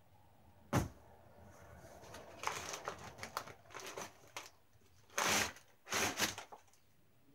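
Plastic packaging and a cardboard box being handled while the contents are lifted out: a sharp knock about a second in, crinkling rustles through the middle, and two louder rustles near the end.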